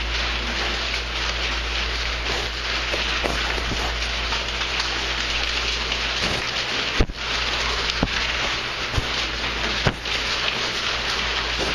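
Eight-week-old piglets sniffing and snuffling right at the camera, their wet snouts rubbing on it over a steady hiss. Snouts bump it with a few sharp knocks, the loudest about seven seconds in and near the end.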